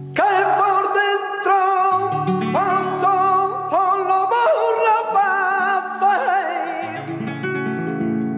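Flamenco petenera: a violin plays a sliding melody with wide vibrato, each phrase swooping up into its note, over the flamenco guitar's low bass notes.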